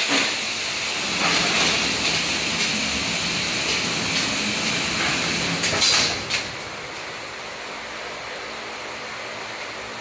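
Vacuum-forming thermoformer starting its cycle: a loud hiss of rushing air starts abruptly and runs for about six seconds, then stops with a couple of clicks and knocks. A steady machine and fan hum is left under it.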